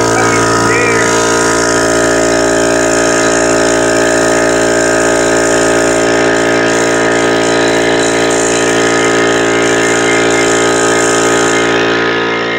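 Harbor Freight 21-gallon oil-lubricated piston air compressor running steadily and loud as its pump fills the tank on its first run-in. The highest hiss eases off a little near the end.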